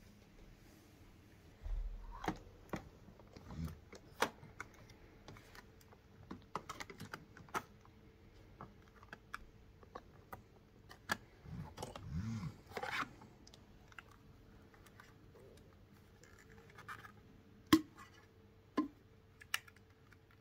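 Hands handling the parts and packaging of a robot vacuum: irregular clicks, taps and scrapes of plastic, with a low thud about two seconds in and a sharper click near the end.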